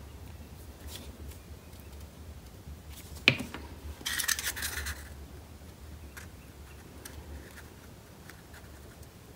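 Thin paper whisker strips and a paper cone puppet being handled and pressed together: soft paper rustles and light taps, with a sharp tap a little over three seconds in and a short crinkly rustle just after it.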